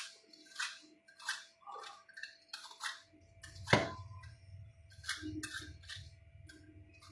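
Light, irregular clicks and taps of kitchen utensils and dishes being handled, about one or two a second, with one louder knock about four seconds in. A low hum comes in a little before that knock.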